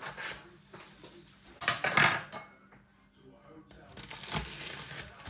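A sharp kitchen clatter about two seconds in, then a long knife cutting through a toasted grilled cheese sandwich on a wooden chopping board, starting at about four seconds.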